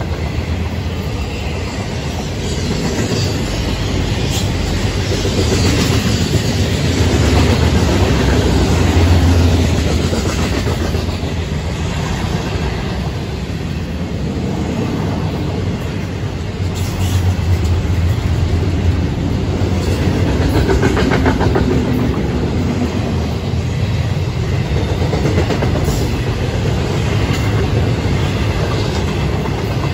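Florida East Coast Railway freight cars rolling past: a steady rumble of steel wheels on rail with a clickety-clack over the rail joints and a few sharp clanks.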